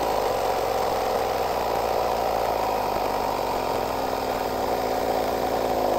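Battery-powered 12 V portable air compressor running steadily with an even mechanical drone, inflating a car tyre through its hose.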